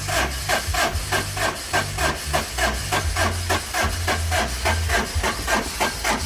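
Suzuki Super Carry engine being cranked by its starter without catching, a steady rhythmic churning of about five compression strokes a second. It is a hot-start failure: the engine starts cold but won't fire once hot, and the owner suspects the starter turns too slowly when hot.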